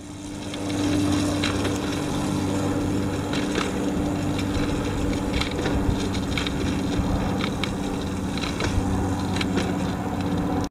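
Riding noise from a moving bicycle on a concrete street: steady wind and tyre rumble, with light clicks and rattles now and then.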